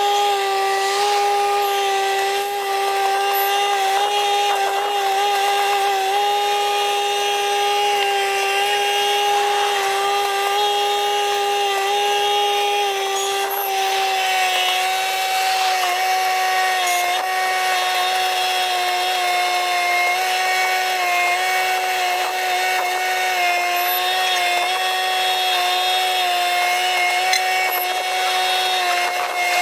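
Pothole patching truck's spray-injection machinery running with a loud, steady high-pitched whine while it blows patching material into a pothole. The pitch dips slightly about halfway through.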